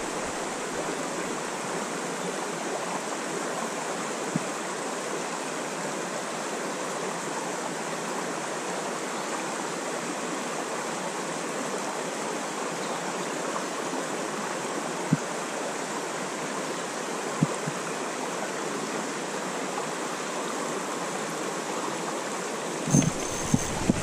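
Mountain trout stream running: a steady, even rush of flowing water. A few single clicks stand out, with a short cluster of knocks near the end.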